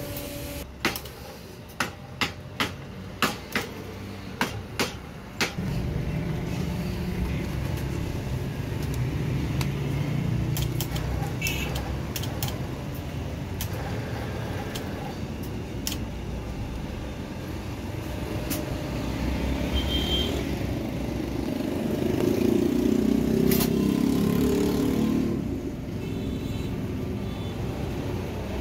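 About nine sharp hammer knocks in the first five seconds, then a small electric motor runs steadily, spinning a metal spool as wire is wound onto it, the hum swelling louder for a few seconds near the end.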